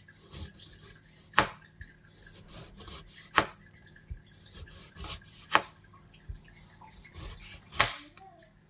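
Knife slicing a lemon on a plastic chopping board: quiet scraping as the blade works through the fruit, then a sharp tap of the blade on the board as each slice comes off, four times about two seconds apart.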